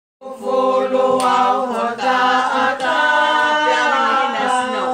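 Voices singing a cappella, several pitches held together in long sustained notes.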